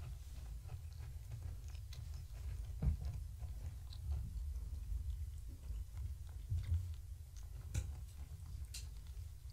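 Faint scattered clicks and taps of kittens playing around plastic ball-track toys, over a low steady room rumble.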